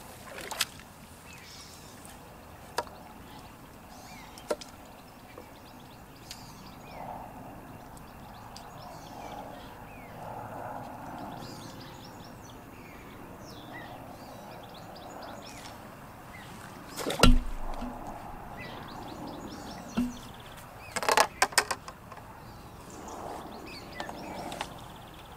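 Quiet pondside background with scattered sharp clicks and knocks from pole-fishing tackle being handled. The loudest is a single heavy thump about seventeen seconds in, followed about four seconds later by a quick run of clicks.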